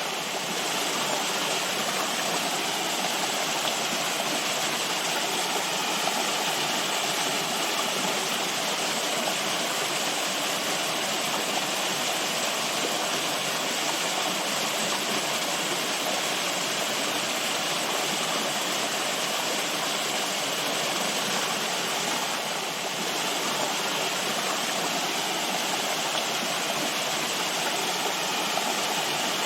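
Running water, a steady rushing flow with no breaks or changes.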